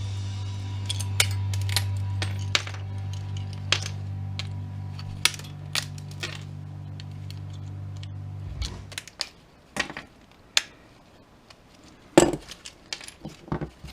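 Small pieces of scrap metal clinking and clattering as they are handled and dropped, with a cluster of louder clanks about twelve seconds in. A steady low hum runs underneath and cuts off about nine seconds in.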